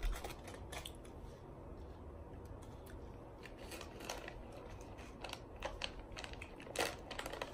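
Plastic MRE pouches (crackers and nut raisin mix) handled and turned in the hands, giving short crinkles and crackles at irregular moments, the loudest near the end.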